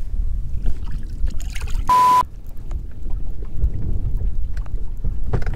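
Low rumble of wind and water around a small fishing boat as it strikes a submerged concrete piling. About two seconds in, a short censor bleep covers an outburst.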